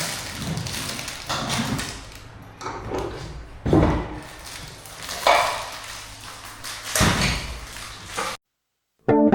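Work sounds of wooden furniture being installed: about five separate knocks and thuds spread through, over a faint steady low hum.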